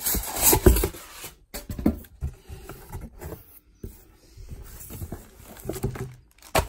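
Polystyrene foam packing and cardboard box being handled: irregular scraping and rustling, loudest in the first second, with a sharp knock near the end.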